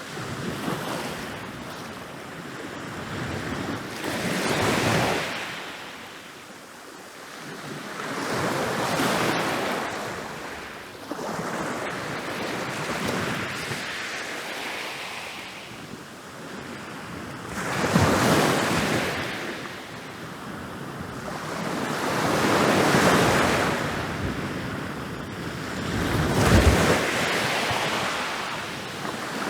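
Ocean waves rolling in and breaking on a beach, surging and receding every few seconds, with one of the larger breaks about eighteen seconds in.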